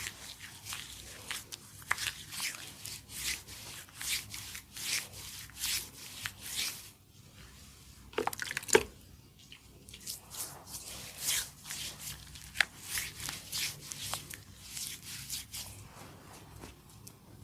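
Hands rubbing and massaging skin in quick, repeated swishing strokes, about two a second, with a short pause about seven seconds in and a couple of sharper clicks just after.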